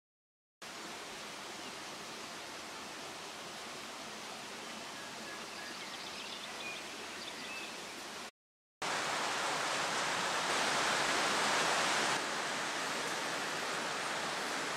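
Steady rushing outdoor background noise with a few faint high chirps partway through. After a brief silent break it comes back louder and stays steady.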